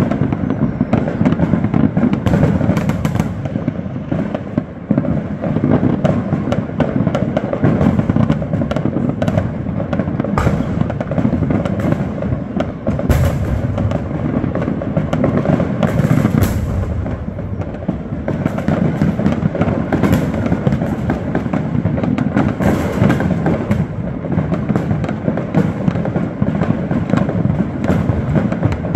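Fireworks going off non-stop from many places at once: a dense, unbroken din of crackling and bangs, with a few sharper, louder bangs around ten, thirteen and sixteen seconds in.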